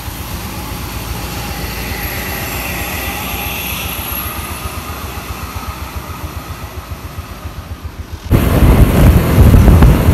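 ANS bus with a loud aftermarket 'srigala' exhaust running, a steady rumble under a high, jet-like whine. About eight seconds in the sound suddenly becomes much louder and rougher.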